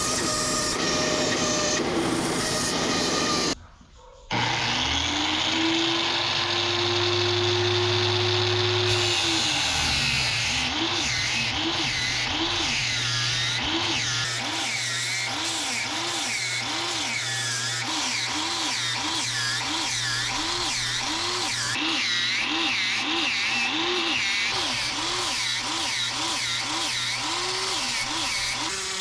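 Electric power tool running with a gritty noise over its motor whine. After a short break the motor speeds up, holds for a few seconds, then its pitch swings down and up about once a second, as if repeatedly loaded or pulsed.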